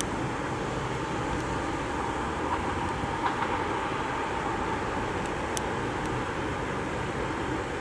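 EP2K electric passenger locomotive and its train approaching slowly, with a steady running noise of the locomotive and the wheels on the rails. A few faint clicks come about three and five and a half seconds in.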